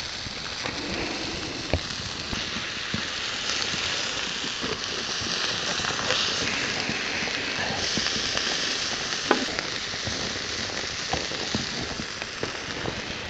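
Trout fillets sizzling in butter in a frying pan over an open fire: a steady hiss with scattered small pops.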